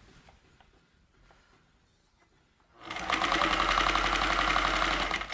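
Kenmore 158.1040 sewing machine stitching a straight seam. It is stopped for nearly three seconds, with only a few faint clicks, then runs at a steady rapid stitch rate for about two and a half seconds and stops near the end.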